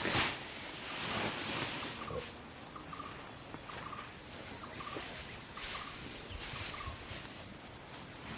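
Rustling swishes of cut rice stalks being handled and swung during manual threshing, several half-second rushes of noise. Short faint chirps repeat about once a second in the background.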